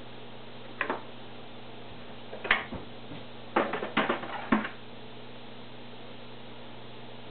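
Hard plastic canister-filter parts knocking and clicking as they are handled and set inside the filter canister: a single click just under a second in, another about two and a half seconds in, then a quick run of knocks a second later.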